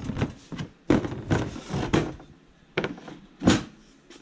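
Metal objects being handled and slid around on a sheet of cardboard lying on a steel table: a string of knocks and scrapes as a can, a steel rod and a cast-iron weight plate are set down and pushed about, the loudest knock about three and a half seconds in.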